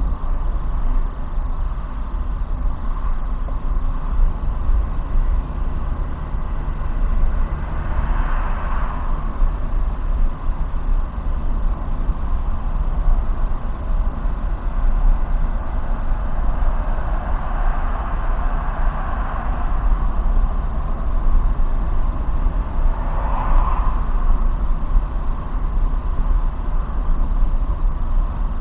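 Car driving at speed, heard from inside the cabin through a dashcam: a steady low rumble of engine, tyres and road. Two brief swells of louder hiss come about eight and twenty-three seconds in.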